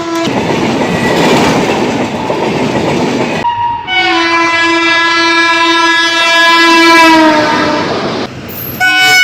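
A train running with even rumbling noise. After an abrupt cut about three and a half seconds in, an Indian Railways locomotive horn sounds one long blast of about four seconds that drops in pitch as it ends. Another horn blast starts near the end.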